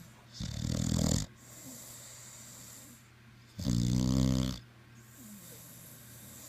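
Loud snoring: two snores about three seconds apart, each lasting about a second, with quieter breathing between them.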